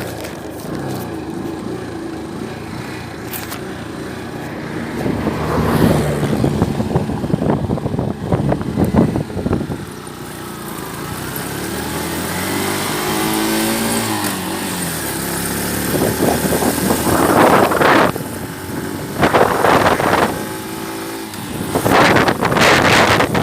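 Motor vehicles passing, with one engine's pitch rising and then falling around the middle.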